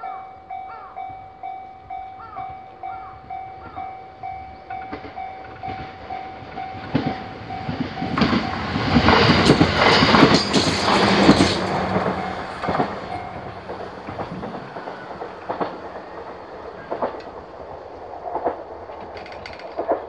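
A Japanese level-crossing alarm bell dings steadily at about two strikes a second while an electric JR commuter train approaches and passes. The train is loudest a few seconds past the middle, its wheels clacking over the rail joints. The bell stops soon after the train has gone, and a few knocks follow near the end.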